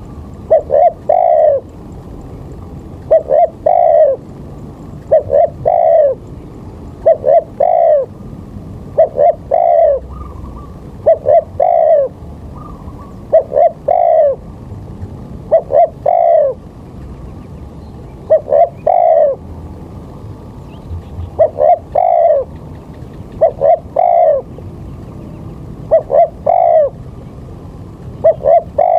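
A bird calling: a short three-note phrase of two quick notes and a longer one, repeated about every two seconds.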